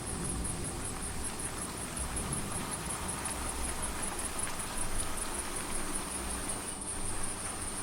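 Night-time rain ambience with crickets chirping in a fast, steady high-pitched pulse over a soft even hiss of rain.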